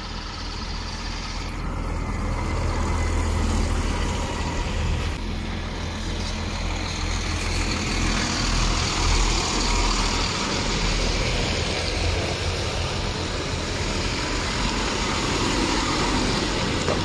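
Heavy lorry running: a steady low engine rumble under broad noise, swelling slightly a couple of times.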